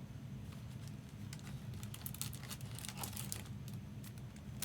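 Trading cards and foil pack wrappers being handled: light crinkling and small clicks, busiest in the middle, over a steady low hum.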